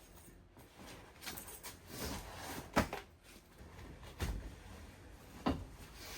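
Hands working a drag parachute pack: rustling of the pack and a few sharp knocks and clacks, four in all, the loudest near the middle.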